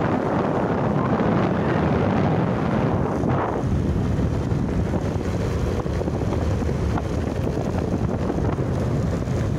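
Wind rushing over the microphone of a moving vehicle, a steady rush with a low rumble of road and running noise underneath.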